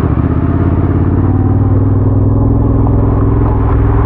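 Yamaha Ténéré adventure motorcycle engine running steadily at an even pitch.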